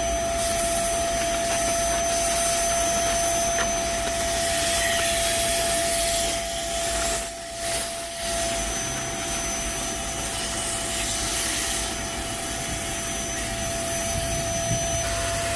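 Vacuum cleaner running with a steady whine while a detailing brush works dust out of a car's console tray; the sound dips briefly twice a little past halfway.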